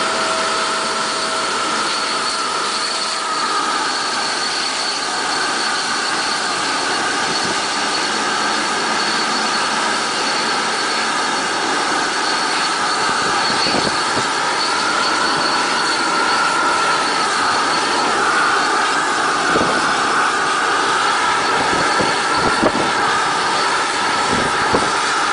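Boeing 777-300ER's GE90 turbofan engines running at taxi power: a steady jet whine with a high whistle over a constant hiss of jet blast, growing slightly louder as the aircraft turns away from the microphone. A few short thumps near the end.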